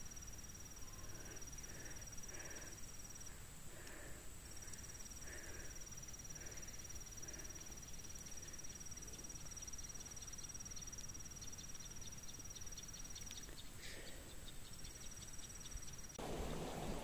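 Insects trilling steadily in two high pitches, one of them pausing twice and stopping shortly before the end. A rushing noise like flowing water cuts in suddenly near the end.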